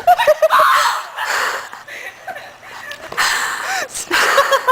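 Young people laughing and giggling, in quick bouncing bursts with breathy stretches of laughter.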